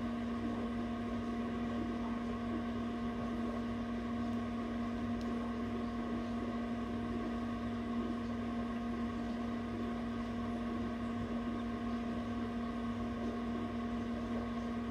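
Egg incubator running with a steady hum.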